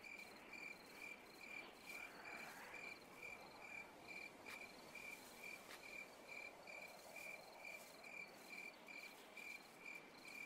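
Faint cricket chirping steadily, about three chirps a second, over near silence.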